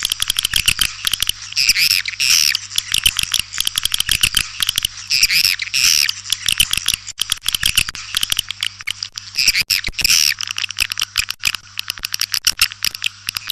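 White-nest swiftlets twittering: a dense, continuous stream of rapid high chirps and dry clicks, the call sound played to lure swiftlets into a nesting house. A faint low hum runs beneath it.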